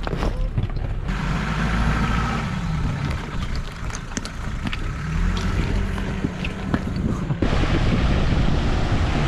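Mitsubishi Pajero crawling in first gear at idle over river stones and through a shallow stream. A low, steady engine note rises and falls slightly, with scattered clicks of tyres on rock and a steady rush of splashing water.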